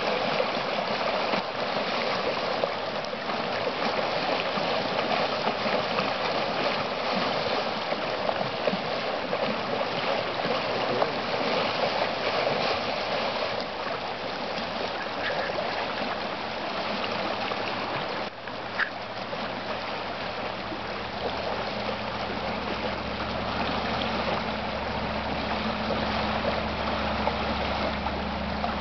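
Water rushing steadily down a normally dry desert wash running with runoff. A low steady hum joins in under the water from about twenty seconds in.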